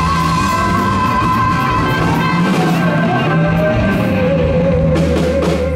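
Live blues-rock band playing electric guitar, bass guitar and drums. A long wavering note is held, then a lower note is held near the end.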